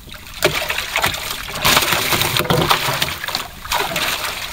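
Wooden paddle stroking through river water beside a small wooden boat, splashing and sloshing in a few noisy strokes that start about half a second in and ease off near the end.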